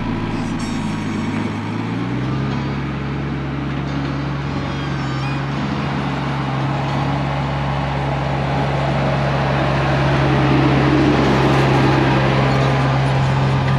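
Solis 26 HST compact tractor's diesel engine running while pushing snow with its front blade. The engine note steps up about two seconds in, and the sound grows louder as the tractor comes close near the end.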